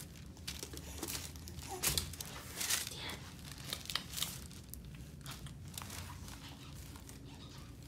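Crinkling and rustling of the paper cover on a doctor's exam table as a baby squirms on it and clothing is handled beside him, in short, scattered rustles.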